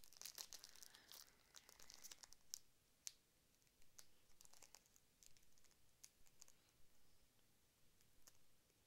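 Foil Yu-Gi-Oh booster pack being crinkled and torn open, faint, over the first couple of seconds, followed by scattered faint clicks as the cards are handled.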